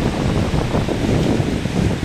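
Steady rain and wind, with the wind rumbling on the microphone.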